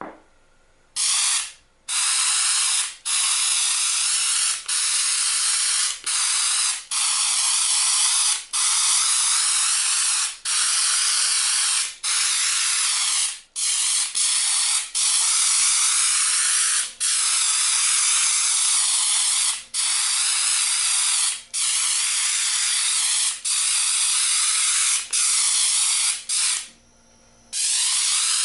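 Airbrush blowing air and paint through a homemade screen nozzle cap, spattering speckles for a granite effect: a loud, steady hiss broken by brief dips every second or two, with a longer pause near the end.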